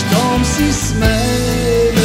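Rock ballad music, drums and bass under a lead line on electric guitar that slides up into its notes and then holds one long note in the second half.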